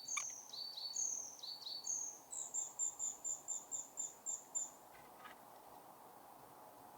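Small songbird singing: a few short high chirped phrases, then a fast run of about ten evenly repeated high notes that stops about two-thirds of the way through, over faint outdoor background noise.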